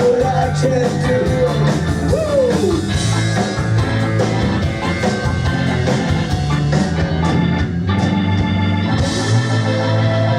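Live rock-reggae band playing an instrumental passage, with organ prominent over guitar, bass and drums, and a sliding melodic line about two seconds in.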